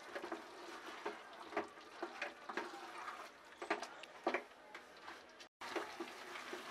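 Spatula scraping and knocking against the pan while chicken and kidney beans are stirred together, a string of soft irregular clicks and scrapes. The sound cuts out for an instant about five and a half seconds in.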